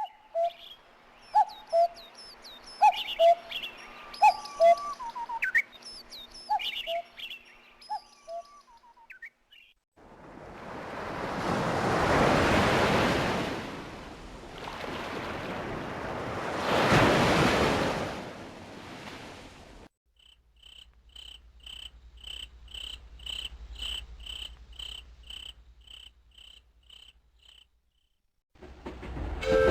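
Nature-sound ringtones from a Motorola mobile phone, recorded straight from its audio output. First about ten seconds of bird chirps and whistles, then two slow swells of rushing noise, then a steady cricket-like chirping at just under two pulses a second.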